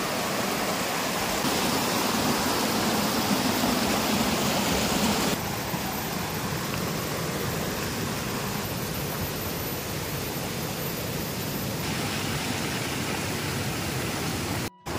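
Water gushing fast down a roadside ditch, a steady rushing hiss. It drops in level about five seconds in and cuts out briefly near the end.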